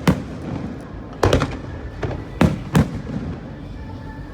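Aerial firework shells bursting in the sky: a series of sharp booms, one at the start, a quick cluster about a second in and two more around two and a half seconds in, each with a short echoing tail.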